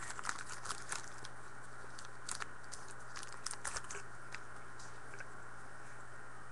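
Faint, scattered clicks and light crunches of trading cards and pack wrappers being handled and sorted, over a steady low hum.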